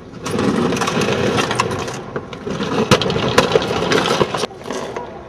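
A refrigerator lying on its side being dragged over stone paving: a loud, continuous scraping and grinding with many knocks and clatters, easing off about four and a half seconds in.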